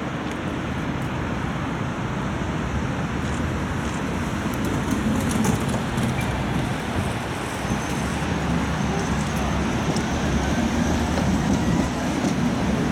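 Tatra T3 tram in motion, heard from on board: a steady low rumble of wheels on rails and running gear that grows gradually louder, with a few faint high ticks midway.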